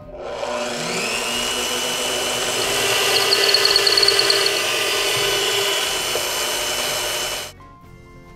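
Bosch PBD 40 bench drill press motor winding up to speed, then its twist bit boring a hole into the vise's plywood body. It stops suddenly about a second before the end.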